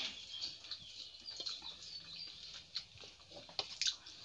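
Close-up eating sounds, chewing and a few sharp lip smacks and clicks, mostly in the second half. Small birds chirp faintly in the background.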